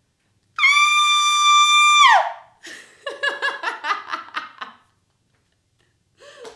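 A woman's high-pitched scream, held steady for about a second and a half, then sliding down in pitch as it breaks off. She then laughs in quick pulses for about two seconds.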